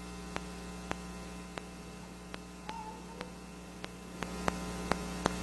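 Steady electrical mains hum from the recording chain, with faint sharp clicks scattered about every half second: a recording fault.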